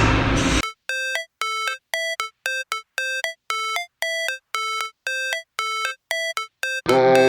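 Background music: the full track drops out and a synthesizer plays short, clean beeping notes about twice a second, then the full music comes back in near the end.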